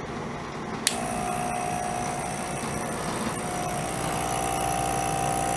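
Small electric air pump switched on with a click about a second in, then running with a steady hum. It is in pressure mode, pumping air into a capped carboy to push the liquid across in a racking transfer.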